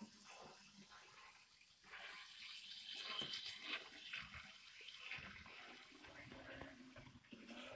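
Faint running noise of a Märklin Miniclub Z-scale BR 24 model steam locomotive and two coaches on the track: a soft, uneven hiss and rattle, a little louder a couple of seconds in.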